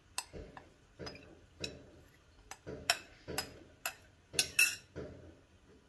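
A utensil clinking against a bowl in a string of sharp taps, about one to two a second and loudest near the end, as soaked poha (flattened rice) is scooped and knocked out into a larger bowl.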